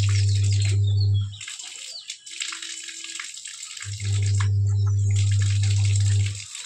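Hose water pouring and splashing into a plastic bucket as a golden retriever bites and laps at the stream. A louder, steady low hum comes in twice, for about two seconds each time.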